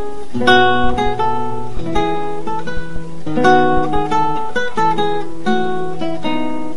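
Background music played on acoustic guitar: plucked notes and strummed chords over a held low line.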